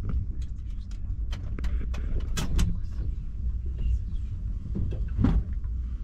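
Steady low rumble of a Ouigo TGV train running, heard inside the passenger car, with scattered sharp clicks and knocks, the loudest about two and a half seconds in and again about five seconds in.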